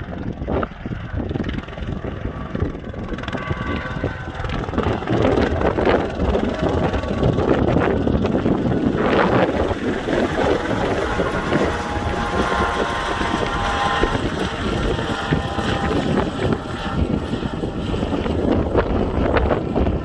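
Helicopter flying overhead, growing louder a few seconds in and then holding steady.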